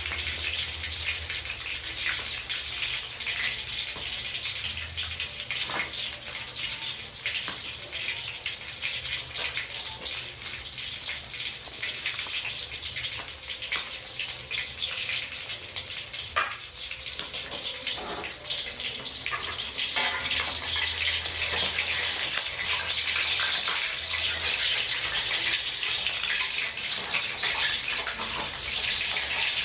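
A whole fish shallow-frying in hot oil in a wok: steady sizzling with fine crackling pops, growing louder over the last third.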